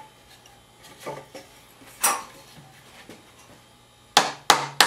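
Faint handling and a short rustle, then near the end three quick taps, about three a second, of a rubber mallet on a wooden jig fitted over the oar's rope wrap, tapping the braided nylon wrap down tight.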